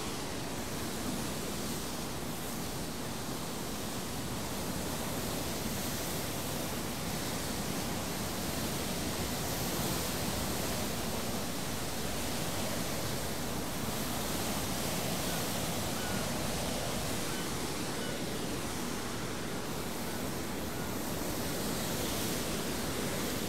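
Steady rushing noise of wind and sea water streaming along the side of a moving cruise ship.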